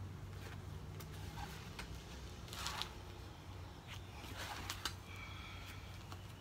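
Two swings of a softball bat whooshing through the air about two seconds apart, with a few light ticks, over a faint steady low hum.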